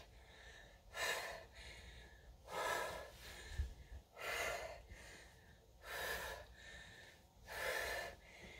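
A woman's breathing during dumbbell curls, picked up close on a clip-on microphone: five even breaths, one about every second and a half to two seconds.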